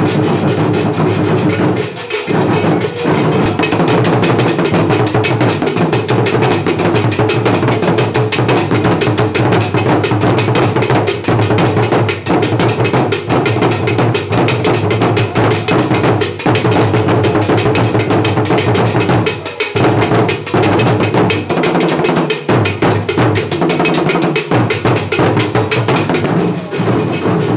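A traditional Akan drum ensemble playing: tall pegged drums beaten with curved sticks together with smaller drums, in a dense, steady rhythm.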